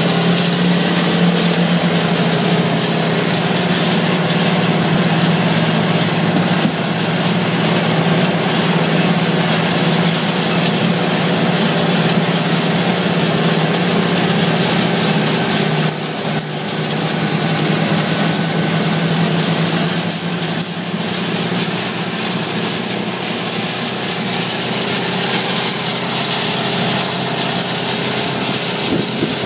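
Tractor engine running steadily under load, a constant low drone, as it pulls a Mandako Twister vertical-tillage disc through corn stalk residue, with the rushing noise of the discs and rolling baskets working the soil.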